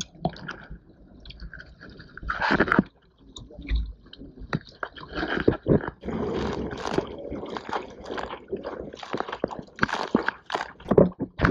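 Water splashing and slapping against the bow of a prone paddle board as it is hand-paddled through choppy water, in irregular bursts of spray.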